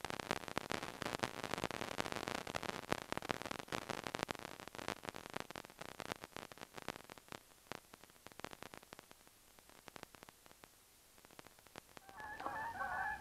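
Faint crackling static made of many sharp clicks, dense at first and dying away after about six seconds into near silence; a faint warbling pitched sound comes in near the end.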